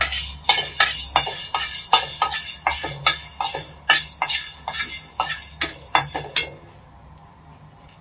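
Black peppercorns popping and crackling as they dry-roast in a hot stainless steel pot: sharp, irregular pops a few times a second that stop about six and a half seconds in.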